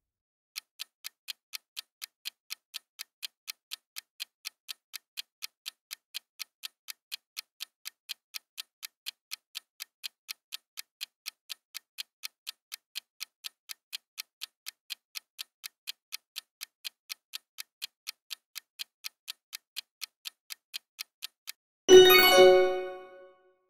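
Countdown timer sound effect: rapid, even clock ticking, about four ticks a second, that stops near the end, when a bell-like chime rings and fades, signalling that the time is up.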